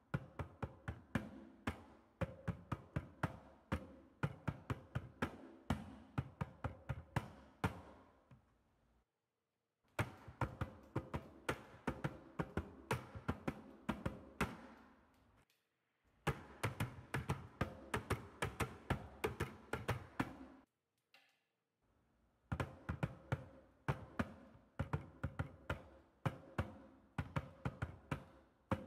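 Jump rope slapping a concrete floor as it is skipped, with the jumper's shoes landing: runs of sharp, rhythmic taps at about two to three a second, broken three times by a second or so of near silence.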